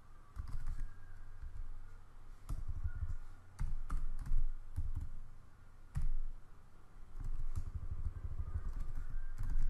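Typing on a computer keyboard: keystrokes come in short, irregular runs separated by brief pauses.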